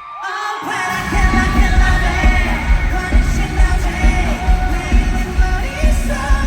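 Live pop song with a male lead voice singing. A heavy bass beat comes in just under a second in and runs on under the vocal.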